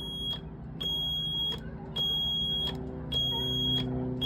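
Yanmar marine diesel instrument panel alarm buzzer beeping repeatedly with the key at ON and the engine not running. Each beep is a high steady tone about three-quarters of a second long, repeating about once a second over a steady low hum.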